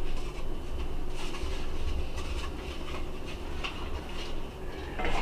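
Spoon scraping and clinking against a pot and bowl as chili is dished out, a few soft scrapes and taps over a steady low hum.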